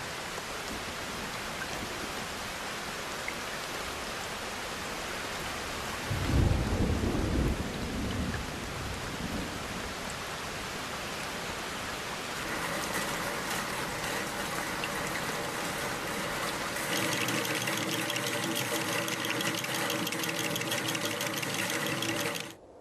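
Steady heavy rain with a single low rumble of thunder about six seconds in. From about halfway, several steady droning tones join the rain and grow louder near the end, then everything cuts off abruptly.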